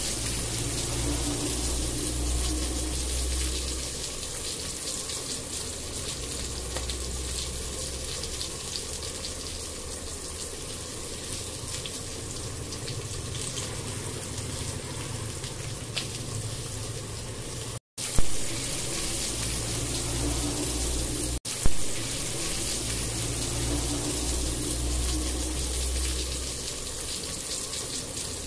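Steady rushing noise over a low hum, broken twice by a brief dropout followed by a short knock, about 18 and 21 seconds in.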